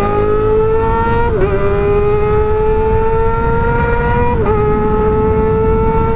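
Kawasaki ZX-25R's 250 cc inline-four engine with an Arrow exhaust pulling hard at high revs, its high-pitched note climbing steadily through the gears. Two quick upshifts, about a second and a half in and a little past the middle, each briefly drop the pitch.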